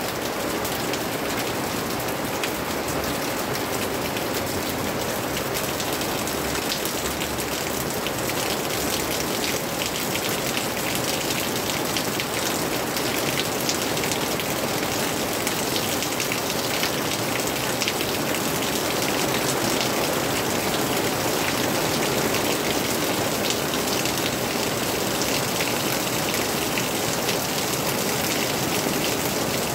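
Steady rain falling on a plastic-sheet and tarp roof and on broad leaves: a dense hiss of many small drop hits, getting a little heavier past the middle.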